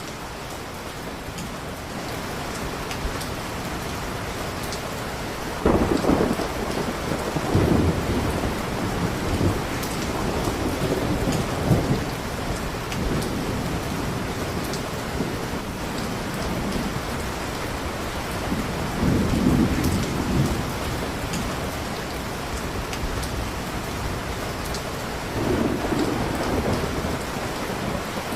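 Steady heavy rain with rolls of thunder: the first starts sharply about six seconds in and rumbles on for several seconds, another comes around twenty seconds in, and a softer one near the end.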